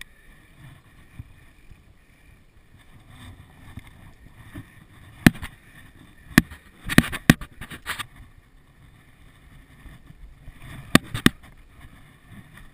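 Downhill mountain bike running down a dirt trail: a low rumble of tyres on dirt with wind on the microphone. Sharp clattering knocks from the bike hitting bumps come once about five seconds in, in a quick cluster a little after, and twice near the end.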